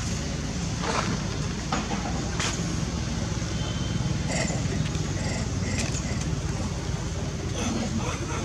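Steady low outdoor rumble, like distant traffic or wind, with a few faint clicks and brief high chirps over it.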